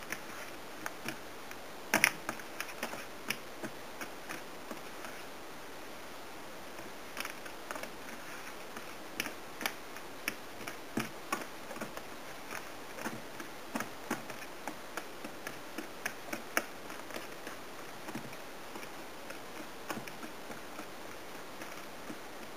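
Wire whisk clicking against a stainless steel mixing bowl in quick, irregular taps as butter is worked into whole wheat flour until it looks like breadcrumbs. The taps pause briefly about five seconds in.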